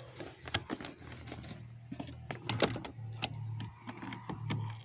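Irregular clicks and rattles of a red booster-cable clamp being handled and clipped onto a car battery terminal, over a low steady hum.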